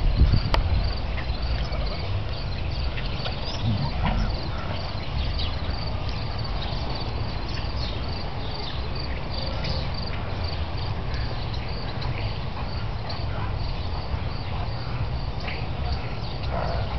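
Crickets chirping in a steady, even rhythm of high-pitched pulses, about two to three a second, over a constant low rumble.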